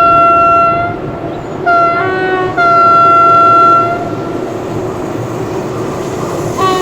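A passing SNCF train sounding its two-tone horn in long blasts that step between a higher and a lower note, followed by the rumble of the train running on the rails. A new horn blast starts at the very end.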